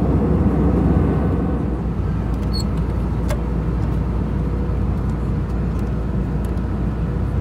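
Steady cabin roar of an Airbus A320 in flight, the engine and airflow rumble heard from a passenger seat, with a faint click about three seconds in.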